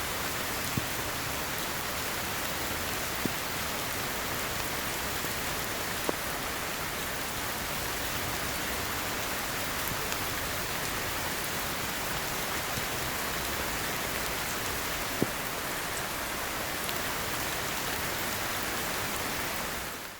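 Heavy rain falling steadily, with a few louder single drops striking close by now and then; it fades out at the very end.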